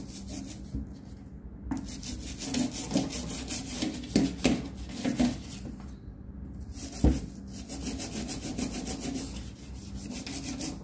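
Toothbrush bristles scrubbing a stainless steel stovetop around a burner in quick back-and-forth strokes, pausing briefly twice. A single knock about seven seconds in.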